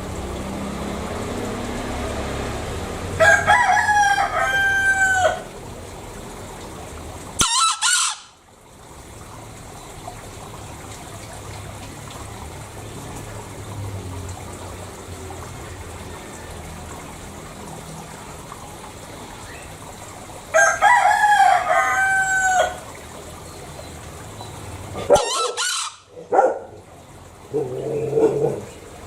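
Green junglefowl calling twice, about seventeen seconds apart, each call a pitched crow lasting about two seconds. A brief loud noise follows each call a few seconds later.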